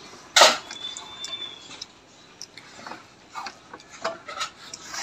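Sounds of eating at a table: small clicks and chewing. About half a second in there is one sharp knock or clatter, the loudest sound, followed by a faint thin high tone lasting about a second.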